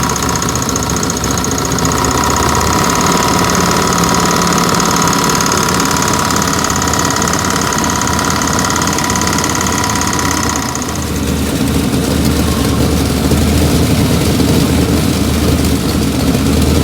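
Ford 5.0 (302) V8 in a 1992 Mustang GT idling with a knock that sounds like a rod knock but comes from a failing power steering pump on the accessory belt. About 11 seconds in the sound changes to the engine idling with the belt off, and the knock is gone.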